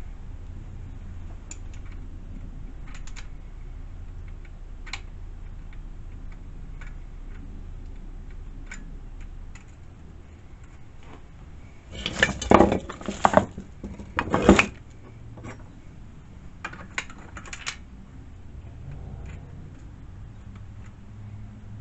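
Small metal tools and parts being handled: scattered light clicks and clinks, with a burst of louder metallic clattering about twelve seconds in that lasts around three seconds.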